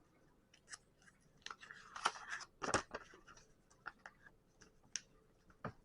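Plastic Lego pieces clicking and clattering as they are handled and pressed together: a busier burst of clatter about two seconds in, then a few single sharp clicks.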